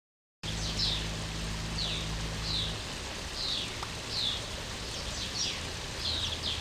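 A bird repeating short, high, falling chirps, one or two a second, over a steady background hiss. A low steady hum underneath stops about a third of the way in, and the sound begins abruptly just after the start.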